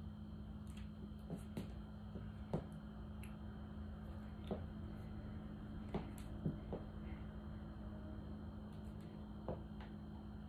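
Quiet room tone with a steady low hum, broken by about ten soft, scattered clicks and taps from a person moving and turning between poses on a wooden floor.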